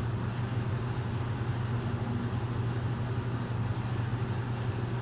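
Big-bore two-stroke snowmobile engine idling steadily on the dyno, a constant low hum.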